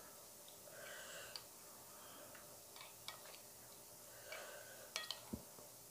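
Near silence with a few faint, scattered clicks and ticks of eating by hand, fingers and a plastic spoon working at food on a plate, with a small cluster of clicks near the end.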